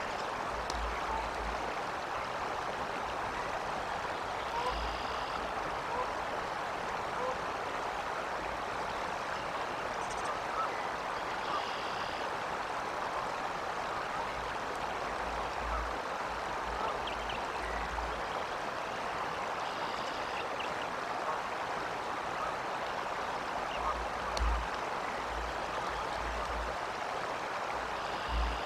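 Steady rush of flowing water, with faint short high calls roughly every eight seconds and occasional low wind bumps on the microphone.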